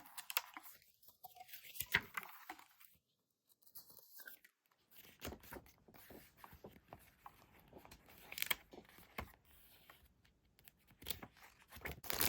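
Packaging being handled and torn open while stationery is unboxed: scattered soft crinkles, rustles and small tearing sounds, with a few sharper crackles.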